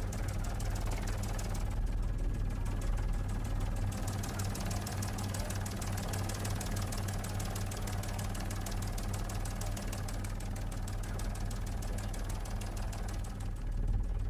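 Helicopter engine and rotor noise heard from inside the cabin: a steady low drone with a fast, even flutter.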